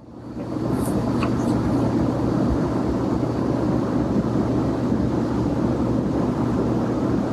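Steady low engine-like rumble with a low hum, fading in over the first second and then holding even.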